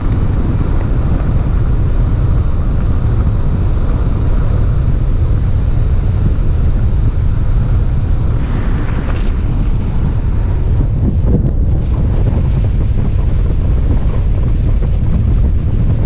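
Steady, heavy wind buffeting on the microphone of a camera mounted outside a moving car, a loud low rumble with the car's road noise underneath.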